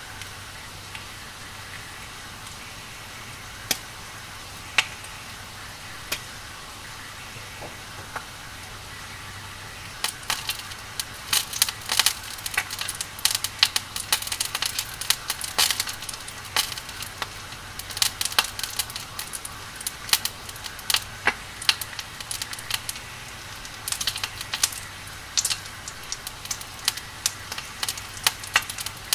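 Burning firewood crackling over a steady hiss. There are a few sharp, scattered pops at first, then dense, rapid crackling and popping from about ten seconds in.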